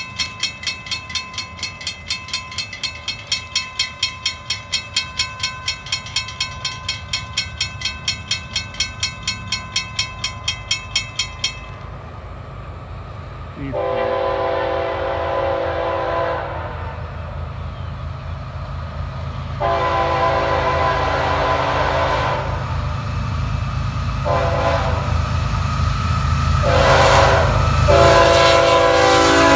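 A grade-crossing warning bell rings rapidly and stops about eleven seconds in. Then the approaching FEC freight locomotive sounds its multi-tone air horn in the long, long, short, long grade-crossing pattern, over a low engine and rail rumble that grows louder as the train nears.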